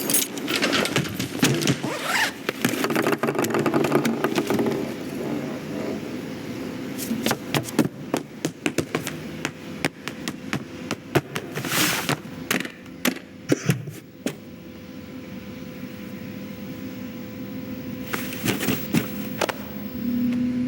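Layered film sound effects: busy rushing and clattering for the first few seconds, then scattered sharp knocks and clicks, then a steady hum with a thin high tone that holds to the end.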